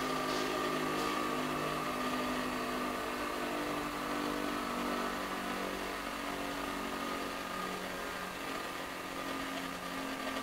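Delta Triple Duty double-ended grinder's electric motor running steadily, a constant hum with a fainter higher tone.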